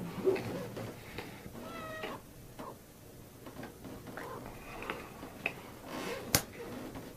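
Several quiet, short meows, their pitch bending up and down, with a sharp click about six seconds in.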